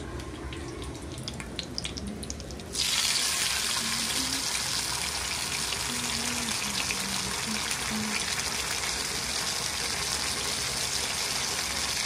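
Spice-coated whole fish shallow-frying in hot oil, a steady sizzle with crackling that starts abruptly about three seconds in; before that, only faint scattered clicks.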